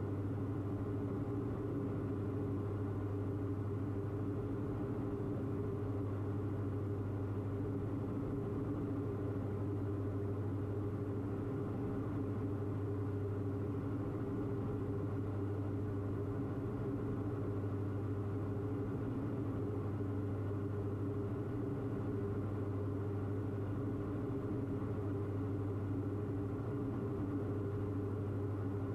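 Diamond DA42 twin's engines and propellers droning steadily at constant power, heard inside the cockpit as a low, unchanging hum.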